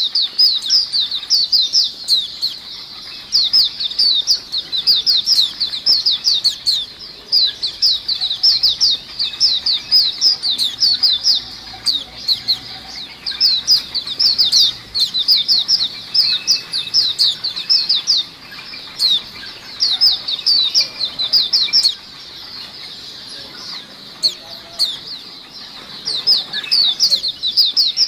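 A cage-full of white-eyes (pleci) calling together: a dense, fast run of short, high, falling chirps, thinning out briefly about two-thirds of the way through. It is the kind of busy group chorus (ombyokan) played as a lure call for white-eyes.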